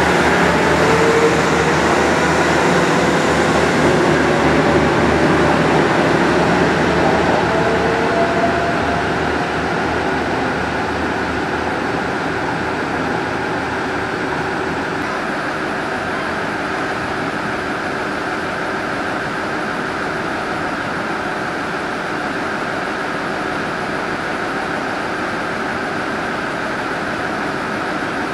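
An Ise Railway Ise-III type diesel railcar standing at the platform with its diesel engine idling. For the first eight seconds or so the sound is louder, with a faint rising whine, before settling to a steady running hum.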